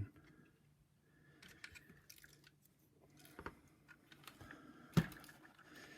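Faint handling of vacuum cleaner nozzle parts during reassembly: small clicks, rustles and scrapes, with one sharper knock about five seconds in.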